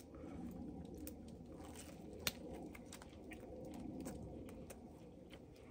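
A man quietly chewing a mouthful of steak on sourdough bread, with faint clicks and one sharp click about two seconds in.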